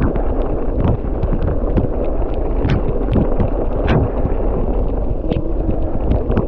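Wind buffeting the microphone and a steady rumble from a Giant Fathom 1 mountain bike's non-studded tyres rolling over a snowy, icy trail. Frequent small clicks and knocks run through it as the bike rides over bumps.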